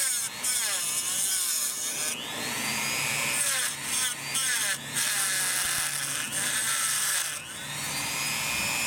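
Dremel rotary tool drilling into a Saturn's plastic intake manifold. It gives a high-pitched motor whine that sags and rises in pitch several times, with a few brief dips in level, while drilling a stop hole before the leaking section is cut out.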